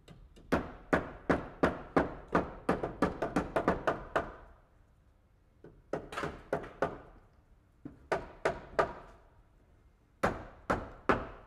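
A series of sharp knocks, each with a short ringing tail: a run of about fifteen that speeds up over the first four seconds, then groups of three or four with pauses between.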